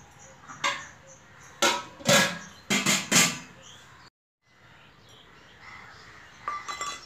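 Steel and aluminium cooking pots and utensils clanking together in about six sharp, ringing knocks, then the sound cuts out abruptly for a moment.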